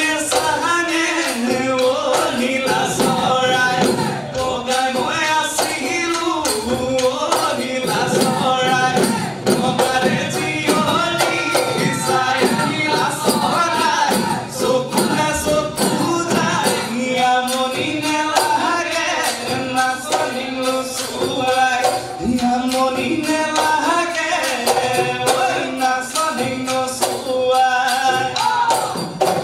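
Live Bihu music: Assamese dhol drums beaten in a fast, steady rhythm with small hand cymbals jingling, and a male voice singing a Bihu song over them.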